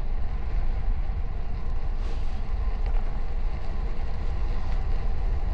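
Steady wind buffeting the microphone of a rider cycling along at speed: a continuous low rumble with no break.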